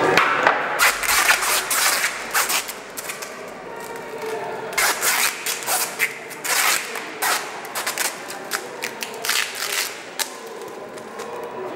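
Adhesive tape being torn off the roll in a quick irregular series of short rips and rasps as it is wound around a joint of wooden beams.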